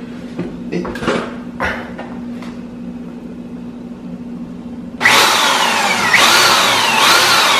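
Corded electric drill starting up about five seconds in and boring an angled pilot hole into the edge of an MDF shelf for a hidden screw. Its motor whine falls in pitch again and again as it runs.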